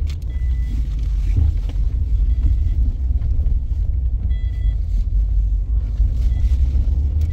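A steady low rumble, with a few brief faint high chirps over it.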